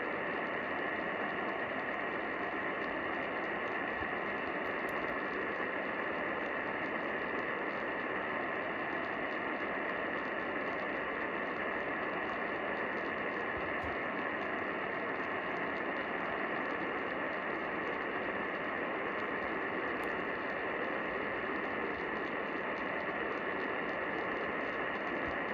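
Steady hiss of a radio receiver tuned to a weak station, with no program audio coming through: dead air or lost reception during an EAS relay.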